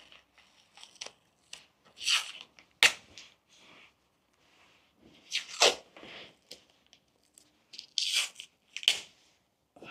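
Adhesive tape pulled off the roll and ripped in several short rasps, strips laid over a glued PVC corner bead to hold it on the wall corner.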